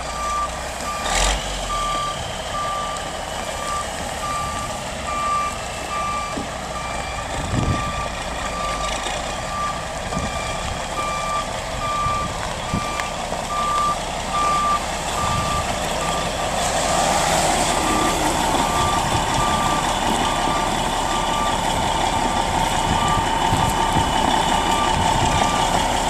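A delivery truck's reversing alarm beeping steadily, about once a second, over the truck's running diesel engine. The engine grows louder about two-thirds of the way through.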